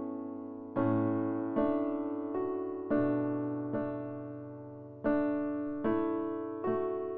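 Background music: slow piano chords, struck about once a second, each ringing out and fading before the next.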